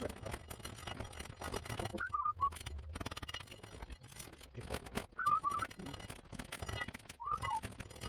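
Three short whistled phrases, each about half a second of a few falling notes, a couple of seconds apart, over faint clicking and rustling.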